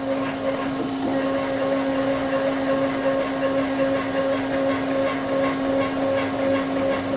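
Leadshine 863S68H stepper motor driving a CNC mill's Z-axis at a low velocity setting: a steady whine with a pulsing higher overtone. At this setting it runs properly.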